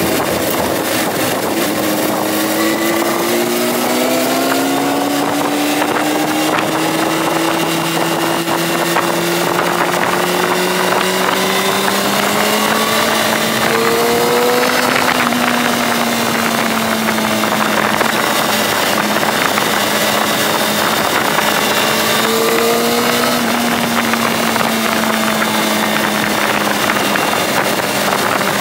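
Honda CBR600RR's inline-four engine running under way, its note climbing slowly with short throttle changes about halfway through and again near the end, over wind rush on the microphone.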